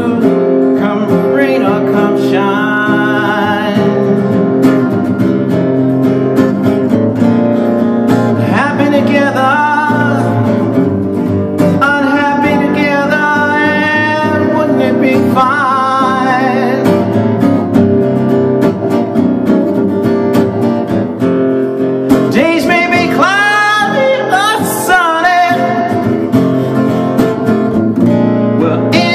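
A man singing an up-tempo acoustic blues over his own strummed acoustic guitar, his voice sliding up into high notes several times.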